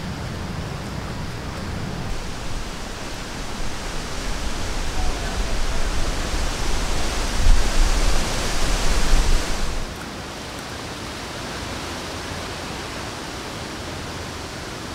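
Wind rushing through the forest trees, with gusts buffeting the microphone as a low rumble. It swells over several seconds, then breaks off suddenly about ten seconds in to a steadier, softer rush.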